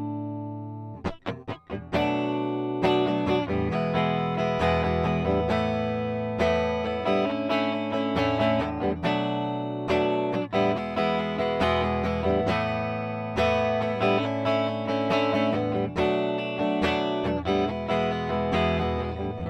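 PRS SE Custom 22 electric guitar played on a clean amp tone: strummed chords and picked single-note lines. There are a few quick muted strums about a second in, and it ends on a ringing chord.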